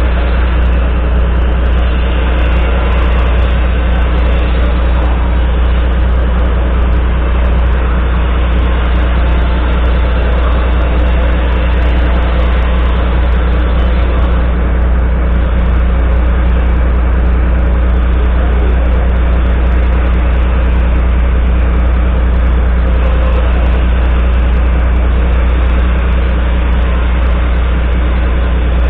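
Volvo FMX 440's 13-litre straight-six diesel idling steadily, heard close to its exhaust stack, with a low, even drone that does not change in pitch or level.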